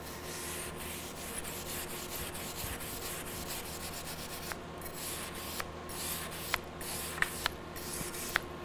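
Wire brush with a wooden handle scrubbing back and forth along a TIG fillet weld on thin stainless steel sheet: a steady scratchy rasp that cleans the heat-tint colours off the weld. A few short, sharp metallic ticks come in the second half.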